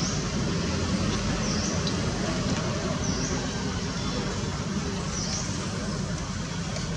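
Steady outdoor background rumble with a short, high, dipping chirp that repeats every couple of seconds.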